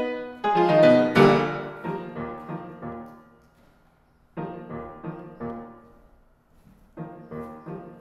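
Grand piano played solo: a quick run ends in a loud chord about a second in that rings away almost to silence. Two short, quieter phrases follow after pauses, about four and seven seconds in.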